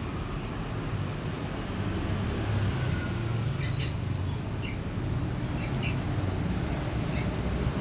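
Cats crunching dry kibble: faint, crisp, scattered crunches, more of them in the second half, over a steady low background rumble.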